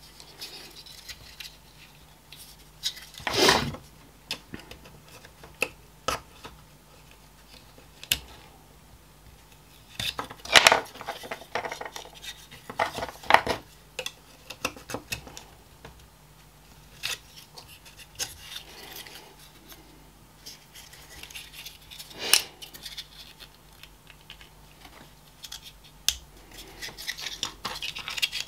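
Handling noise from a small plastic blower fan's housing being pried at and taken apart: scattered clicks, taps and scrapes of plastic, with a few louder clacks.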